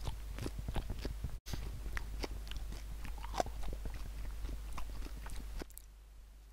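Close-miked chewing: a man biting and chewing two hot peppers at once, a run of wet, crunchy clicks from his mouth that stops about five and a half seconds in.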